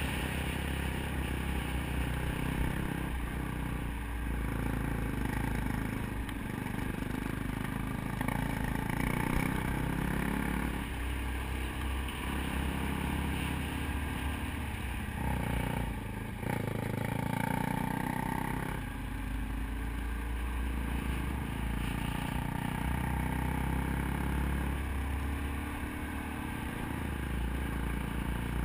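Dirt bike engine, heard from the bike itself, revving up and dropping back every few seconds as the rider works the throttle and gears, with wind rumbling on the microphone.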